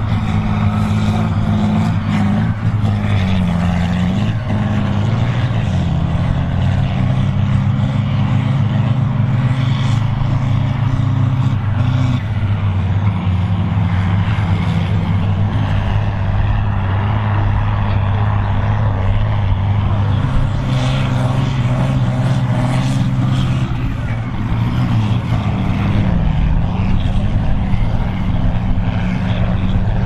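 Volvo BM 810 Turbo tractor's turbocharged diesel engine running hard under heavy load while pulling a plough at speed, a loud, steady drone whose note dips briefly twice.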